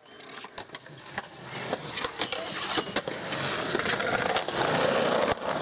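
Skateboard wheels rolling on smooth concrete, the rolling noise swelling over the first few seconds, with scattered sharp clicks and knocks from the boards.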